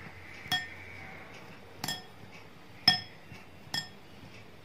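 Glass mixing bowl clinking four times, each a sharp tap with a short ring, as the hand mixing dry gram flour and rice flour in it knocks against the glass; the tap about three seconds in is the loudest.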